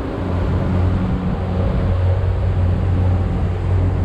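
Boat engine running steadily as a continuous low hum, with a haze of rushing noise over it.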